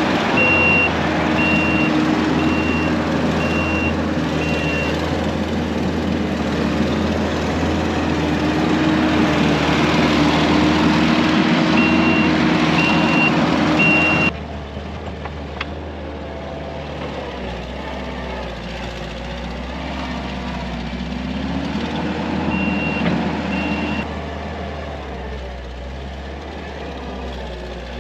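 Heavy earthmoving equipment's diesel engine running under work, with a reversing alarm beeping in three runs. The sound drops abruptly about halfway, and the engine runs on quieter.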